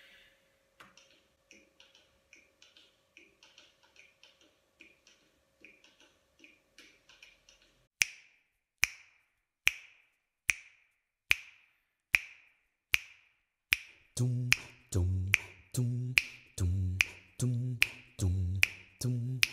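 Finger snaps keeping a steady beat, a little over one a second, that become loud about eight seconds in. Before that there are only fainter, quicker clicks and a faint steady tone. From about fourteen seconds a deep sung bass note pulses between the snaps, like a vocal bass line.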